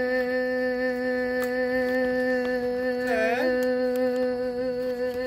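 A young woman's voice holding one long, steady hummed "in" note on a single breath, the drawn-out middle of "Puss in Boots" in a hold-the-note contest. About three seconds in, the pitch briefly dips and comes back.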